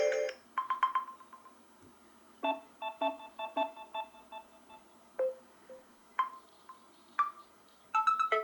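Samsung Galaxy M12 built-in ringtones playing: a sparse tune of short electronic notes with pauses between them, including a quick run of repeated notes, then a fuller, denser ringtone starting near the end.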